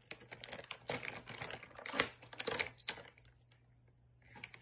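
Plastic snack bag of peanuts crinkling and crackling as it is handled and opened. The quick, irregular crackles go on for about three seconds, pause for about a second, and start again near the end.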